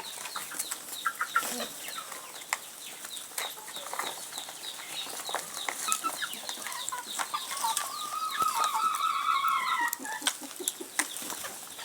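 Chickens clucking while they feed, with scattered sharp clicks of pecking and one longer drawn-out chicken call from about eight to ten seconds in.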